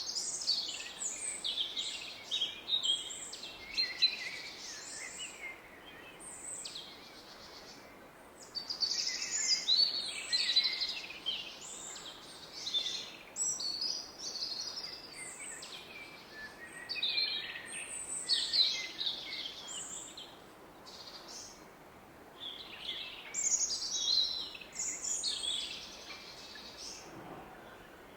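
Woodland birds singing in a run of quick chirping phrases that come and go in clusters, over the steady low rush of a distant river.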